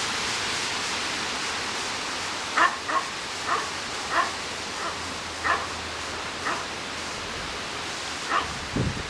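Puppies giving short, high yips and whimpers, about eight scattered calls, over a steady hiss, with a brief low rumble near the end.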